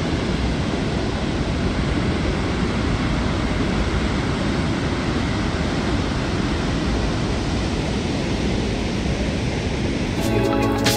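Large waterfall: a loud, steady rush of falling water. Music comes in near the end.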